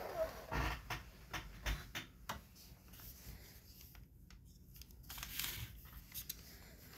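Light taps and clicks of a plastic scale-model engine being picked up and turned over in the hands, most of them in the first couple of seconds, a few more later.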